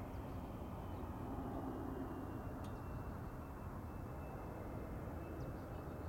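Airbus A350-900's Rolls-Royce Trent XWB engines on final approach, heard from afar as a steady low rumble with a faint, thin, high whine above it.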